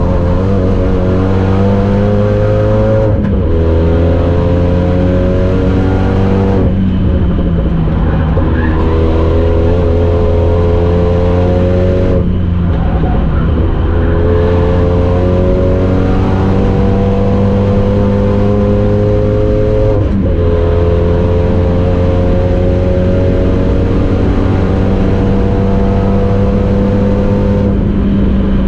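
Renault Megane 3 RS Trophy 265's turbocharged four-cylinder engine under hard acceleration, heard from inside the cabin: its pitch climbs slowly and is broken about five times by brief gear changes.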